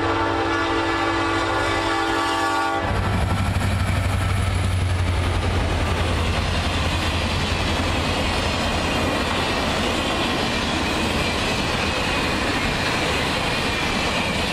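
A locomotive air horn holds a steady chord for about three seconds, then cuts off abruptly. Union Pacific passenger cars then roll past close by, with a steady deep rumble and the clatter of wheels on rail joints.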